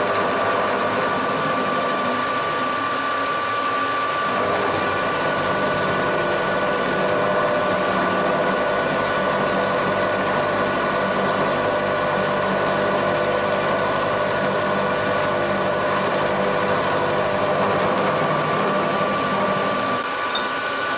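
Hafco HM 54GV milling machine running, with an end mill taking a skimming cut across the top of an aluminium block. A steady machine whine throughout, with a lower cutting sound joining it from about four seconds in and dropping away near the end.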